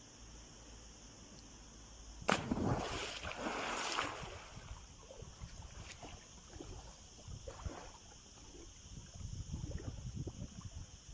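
A person jumping off a diving board into a swimming pool: a loud splash a little over two seconds in, followed by the smaller splashes and sloshing of swimming strokes.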